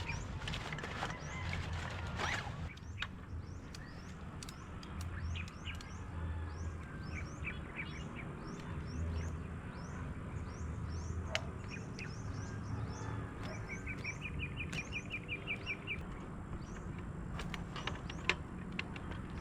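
Birds chirping with repeated short, high calls. Near the end one bird gives a quick trill of about ten even notes. A steady low rumble runs underneath.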